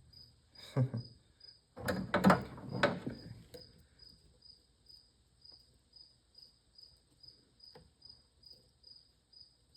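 A cricket chirping steadily, about two high chirps a second. About two seconds in there is a louder stretch of handling noise from small parts being worked into a ratchet head, with a few faint clicks later.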